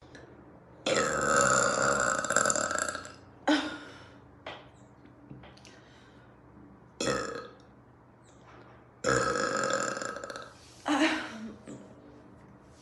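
A woman belching, five burps in all: two long drawn-out ones of about two and a half and one and a half seconds, and three short ones between and after.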